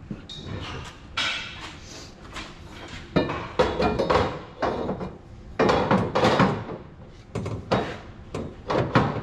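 Irregular metallic clanks and knocks from a tube bender being worked to add a few degrees to a chromoly roll-cage tube bend. The knocks come in loose clusters about once a second.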